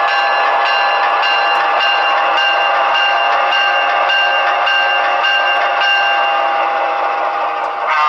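DCC sound decoder of an HO-scale Broadway Limited PRR P5a boxcab electric locomotive model playing a steady electric-locomotive running sound, a hum of several held tones with faint regular ticks, through the model's small onboard speaker. The sound dips briefly shortly before the end.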